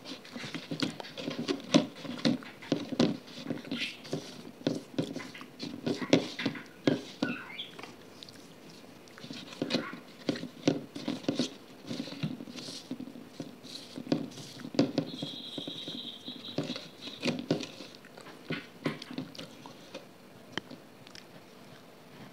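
Close-miked crackling, tapping and scraping as a crumbly grey block is broken up and crushed by hand on a steel plate, with a brief high squeak a little past the middle.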